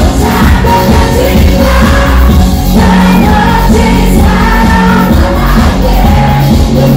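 Pop song played loud through outdoor concert speakers: a singing voice over a heavy bass beat.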